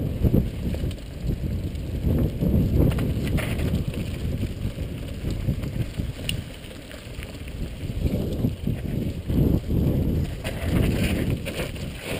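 Mountain bike riding fast down a dry dirt trail: a constant low rumble of tyres and wind buffeting the microphone, with scattered clicks and rattles of the bike over bumps.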